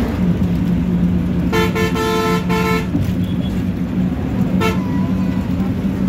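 Bus engine droning steadily, heard from inside the moving bus. A vehicle horn honks in three quick blasts about a second and a half in, and gives one short toot later.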